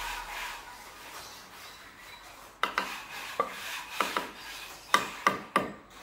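Sharp taps and scrapes of a mason's hand tool on a lightweight concrete block being set into a wall, starting a little over two seconds in and coming irregularly, closer together toward the end. A tail of background music dies away at the start.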